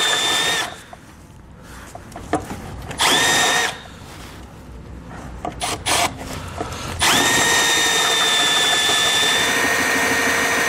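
Cordless drill boring a 17/32-inch hole through the back side of a vehicle frame in three runs at a steady pitch: one stopping just under a second in, a short burst about three seconds in, and a long run starting about seven seconds in. A few light clicks fall between the runs.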